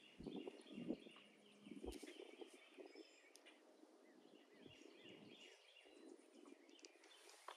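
Near silence: faint outdoor ambience with distant birds chirping in short repeated notes and a few soft clicks.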